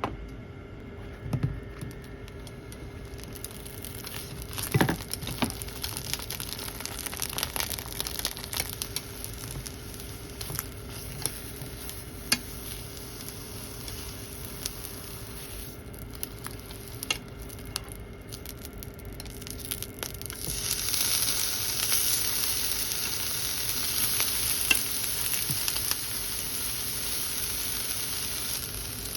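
Eggplant and green peppers frying in a pan, sizzling steadily, with scattered clicks and scrapes of a utensil turning them. About two-thirds of the way through, the sizzling grows clearly louder and stays up. A steady low hum runs underneath.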